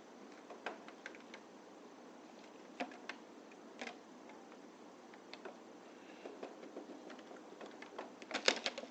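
Scattered light clicks and taps of hands working foil tape onto a plastic refrigerator bin, with a quick run of clicks near the end.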